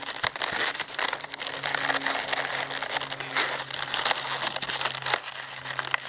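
Inflated latex twisting balloons rubbing and squeezing against each other as a balloon sculpture is handled, giving a continuous dense crackle of many small rubbing noises. A faint steady low hum runs underneath.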